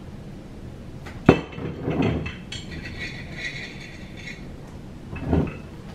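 A treat container being handled and opened: one sharp clink about a second in, followed by quieter knocks and clatter.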